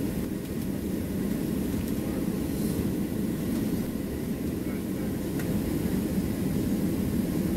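Cabin noise inside a Boeing 737-700 taxiing on its CFM56 engines at low thrust: a steady low rumble heard through the fuselage by the wing.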